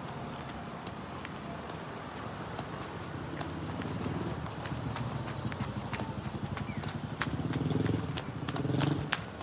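Street noise: a rumbling vehicle engine swells and fades twice near the end, while a run of sharp clicking footsteps sounds on the pavement.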